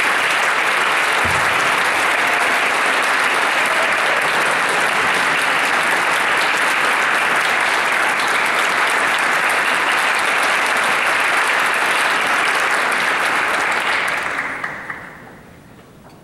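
Audience applauding steadily, then dying away about fourteen seconds in.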